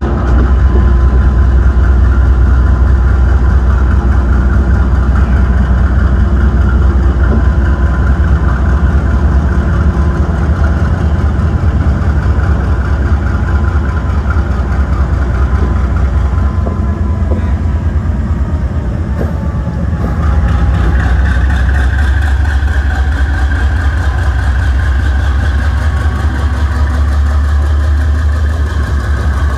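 Diesel locomotive engine running with a loud, steady low drone and steady higher tones above it. It grows a little louder and brighter about twenty seconds in.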